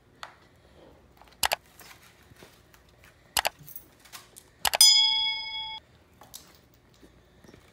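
A few sharp knocks of hard objects on a table, then a bright metallic ding about five seconds in that rings for about a second and cuts off suddenly.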